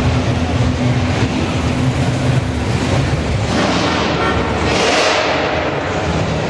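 Muscle car engines rumbling at low speed, a steady deep idle-like note, then a louder rush as a car passes close by about four to five seconds in.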